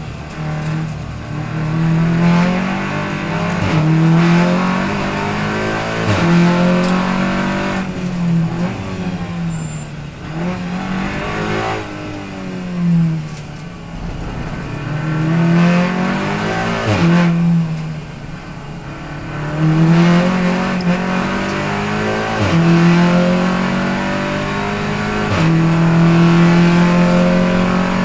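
Heard from inside the cockpit, a TCR touring car's turbocharged four-cylinder engine runs at racing pace. It drops as the car brakes and shifts down to second for slow corners, then revs up over and over through quick upshifts, with sharp cracks at several of the gear changes. Near the end it pulls hard in fifth.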